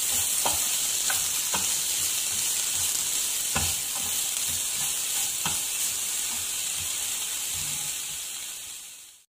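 Chopped onion and tomato sizzling in oil in a nonstick frying pan, with a spatula scraping and knocking against the pan now and then as they are stirred. The sound fades out just before the end.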